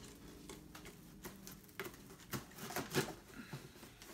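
A large kitchen knife cutting along the packing tape of a cardboard shipping box, making irregular scratchy clicks and scrapes.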